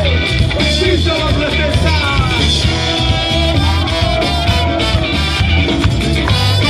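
Loud rock-style music with a steady beat and a singing voice.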